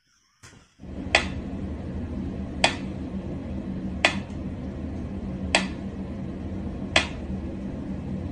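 Mechanical pyramid metronome ticking slowly, a sharp tick about every second and a half, over a low steady hum.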